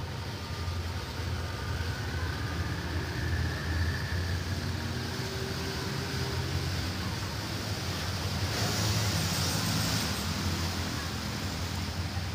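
Steady low rumble of a distant diesel train in a railway yard, with a brief hiss about eight and a half seconds in.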